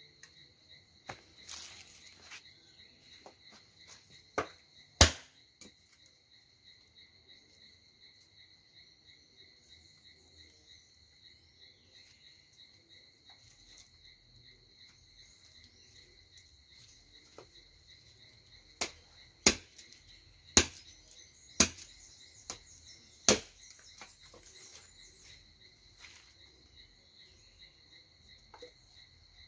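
Steady high insect trilling, broken by sharp knocks of wood being chopped for kindling: two about four to five seconds in, then five in quick succession a little past halfway.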